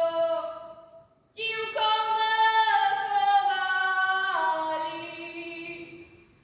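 A girl singing a Slovak folk song in long held notes. She pauses briefly about a second in, and the final phrase fades out near the end.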